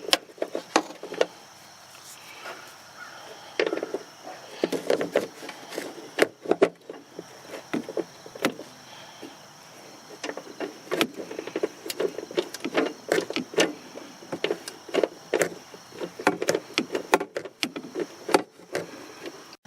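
Hand tools working on the horn's mounting bolt in a pickup's engine bay as it is tightened: a long run of irregular metallic clicks and knocks, some in quick clusters.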